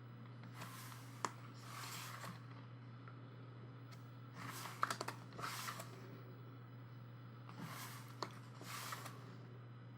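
Paper pages of a photo book being turned one after another: soft swishes every second or two, with a few sharp little clicks, over a steady low hum.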